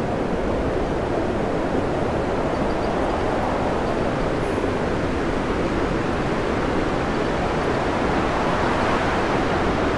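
Storm wind and heavy seas around a tanker ploughing through big waves, with spray flying over its bow: a steady, loud rushing noise.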